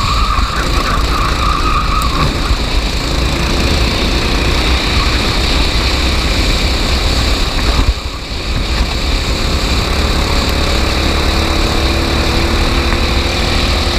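Racing kart engine running steadily at speed, with a dense rushing noise over it; the level dips briefly about eight seconds in.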